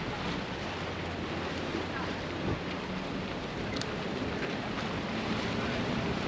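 Steady wind and sea noise, with a low engine hum for the first two and a half seconds and one short click near the middle.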